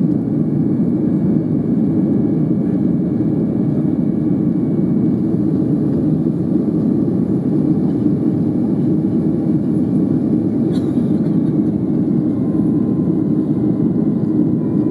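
Steady jet-engine and airflow noise inside the cabin of a Boeing 737-400 in flight after takeoff, its CFM56-3 turbofans running at climb power. A single faint click sounds about eleven seconds in.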